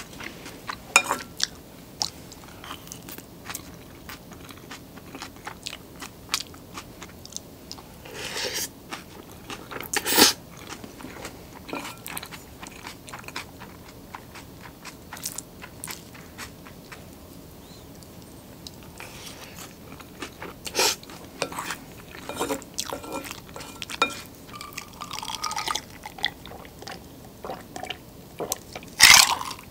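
Close-miked eating sounds: wet chewing and mouth clicks over mouthfuls of abura soba noodles mixed with rice, with a wooden spoon working in a ceramic bowl. Near the end come louder gulps from a glass of iced drink.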